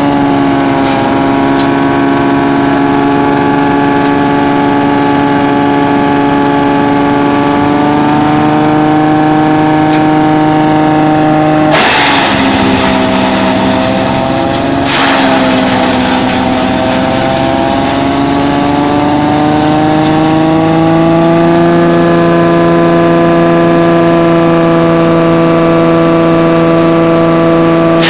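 Tractor-driven PTO double impact shredder running at speed, a steady mechanical hum of engine and spinning rotor. About twelve seconds in, dry coconut fronds are fed in and a burst of coarse shredding noise lasts about three seconds. The machine's pitch sags under the load, then climbs back up over the next several seconds.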